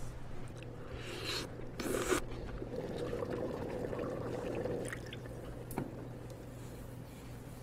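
Liquid being poured and ladled, splashing for a few seconds, then a single light knock about six seconds in.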